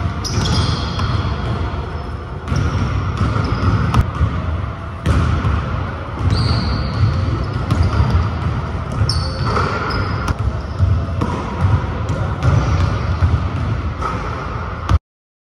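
Basketball dribbled and bounced on a gym floor during one-on-one play, with repeated ball impacts and short high squeaks of sneakers on the court. The sound cuts off suddenly near the end.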